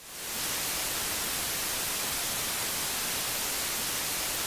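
Steady hiss of static, like white noise, fading in over the first half second.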